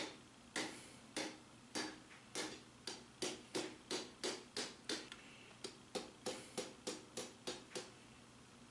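Hand hammer blows on a red-hot lawnmower-blade steel bar lying on an anvil, as the tip of the blade is drawn out and flattened. The blows come about twice a second at first and quicken to about three a second after about three seconds.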